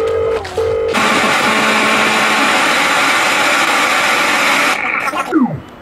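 Telephone sound effects played as a dance soundtrack over loudspeakers: two short low beeps like a phone's engaged tone, then about four seconds of loud line static, then a tone sweeping sharply down in pitch near the end.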